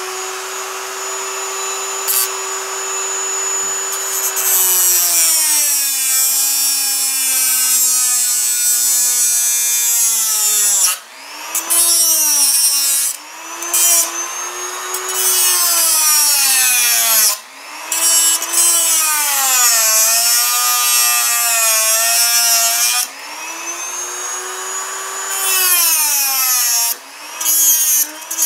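Dremel rotary tool with a cut-off wheel grinding off the protruding tips of steel drywall screws. Its high whine runs steady at first, then drops in pitch each time the wheel bites into a screw and climbs back as it eases off, with several short breaks where the tool lets up.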